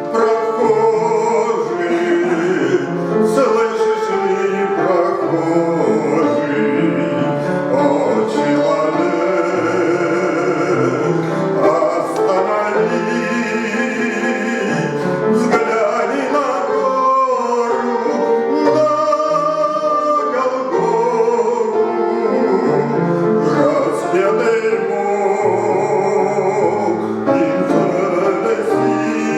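A man singing a Christian hymn over instrumental accompaniment.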